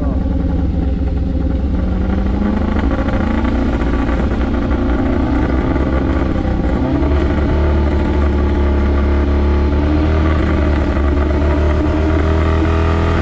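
Off-road vehicle's engine running and being revved, its pitch climbing slowly twice, over a steady deep drone.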